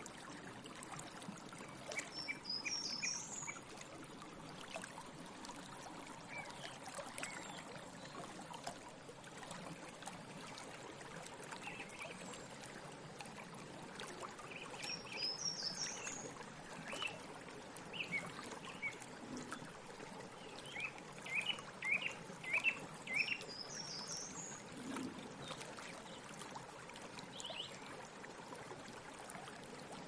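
Song thrush singing short, well-spaced phrases: a high thin figure that comes back three times, and a run of about five quick notes repeated in a row near the end. A steady background hiss runs underneath.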